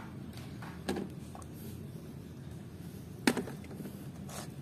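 Plastic toys being handled and set down on a tray: a few sharp clicks and knocks, one about a second in and a louder one a little past three seconds, with faint steady background noise.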